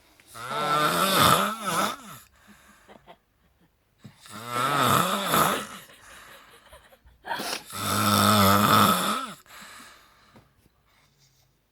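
A person snoring loudly: three long snores, each lasting about two seconds, coming about every three and a half seconds with much quieter pauses between them.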